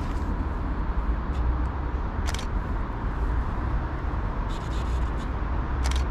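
Steady low outdoor rumble, with a couple of brief clicks, one about two seconds in and one near the end.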